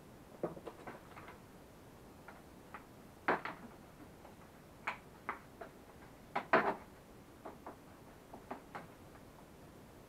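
Scattered hard plastic clicks and knocks as the front body panel of a children's quad bike is handled and pushed into place on the frame, the loudest knock about six and a half seconds in.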